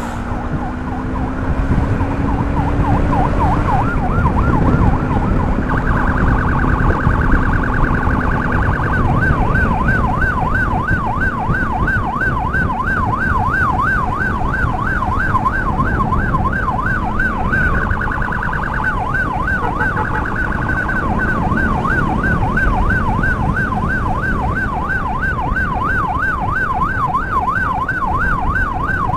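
Electronic emergency siren yelping, its pitch sweeping up and down about four times a second, with two short stretches of a faster warble. A steady low rumble of wind and engine runs beneath.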